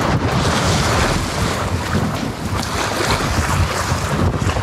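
Strong wind buffeting the microphone over the steady wash of surf on the rocks, in a choppy sea.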